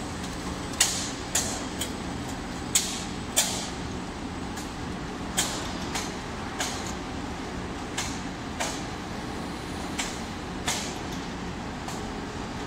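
Caramel popcorn processing machinery running with a steady hum, over which sharp metallic clacks ring out, unevenly spaced about one every half second to a second, as the popcorn is discharged from the stainless-steel caramelizer into the steel hopper and conveyor.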